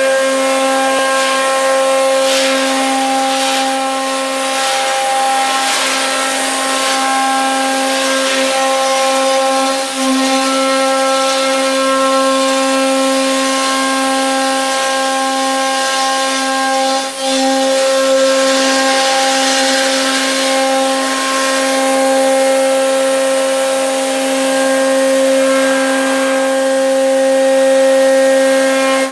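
CNC router spindle milling a soft 3 mm aluminum sheet in a single high-feed pass: a steady, pitched whine over the hiss of the cutter in the metal, with two brief dips in level.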